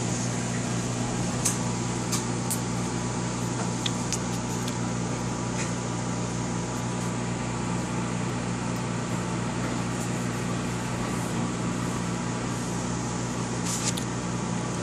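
Steady electrical hum of a household appliance motor, with a few short light clicks and taps here and there.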